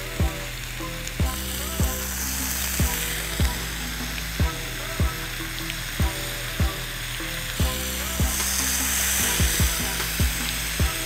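Thick-cut bacon strips sizzling on a hot Blackstone steel griddle, a steady hiss that brightens near the end as more strips go down. Background music with a steady thumping beat runs underneath.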